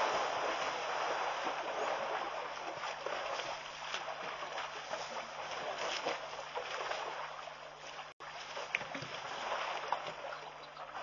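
Elephants sloshing and splashing in shallow muddy water at a waterhole: a steady watery hiss with small scattered splashes, cut out for an instant about eight seconds in.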